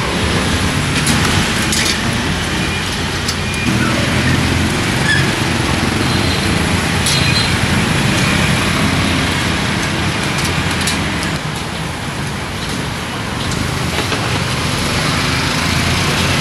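Steady street traffic noise with engines running, and a few sharp clicks now and then.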